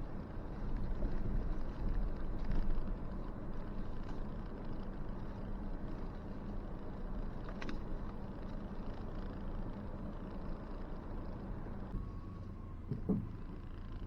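Ford Ranger Tremor pickup creeping along a dirt trail: a steady low engine and tyre rumble, a little louder over the first few seconds. A sharp click sounds about halfway through and a short knock near the end.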